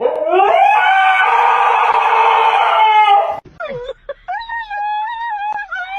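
A pet animal's loud, drawn-out wail rising at its start and lasting about three seconds. After a short break comes a quieter, wavering howl-like whine.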